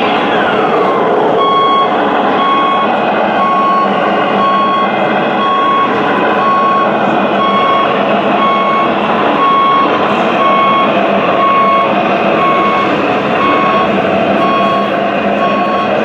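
Reversing beeper of a radio-controlled model truck's sound module, a steady tone beeping about twice a second from about a second in, over steady running noise. A falling whine dies away in the first second.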